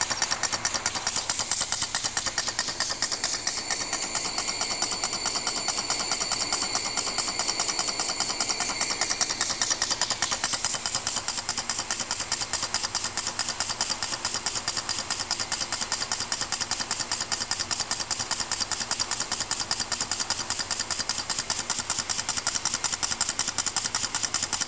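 Small brass model steam engine running on air from an aquarium air pump, giving a rapid, even ticking.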